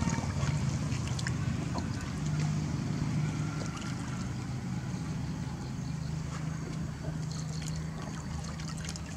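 Light splashing and trickling of water as baby monkeys paddle in a shallow inflatable pool, over a steady low hum.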